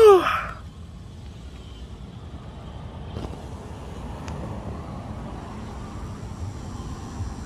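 A man's voice makes a short sound falling in pitch right at the start, the loudest moment, then a steady low outdoor background rumble runs on.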